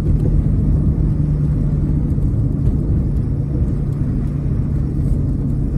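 Gasoline Ford Ranger pickup driving at a steady speed on a snow-covered road, heard from inside the cab: an even low engine drone over tyre and road rumble.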